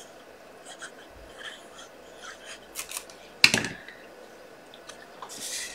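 Cardstock and paper being handled on a craft desk: small scattered rustles and clicks, with one sharp tap about three and a half seconds in and a brief rustle near the end.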